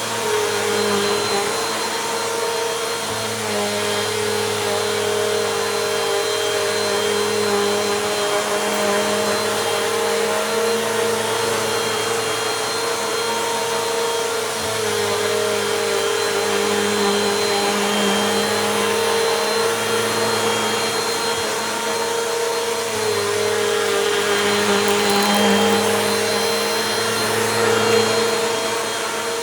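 Bissell Compact vacuum cleaner running steadily over a rug: a constant motor whine over airflow hiss, its pitch dipping slightly now and then.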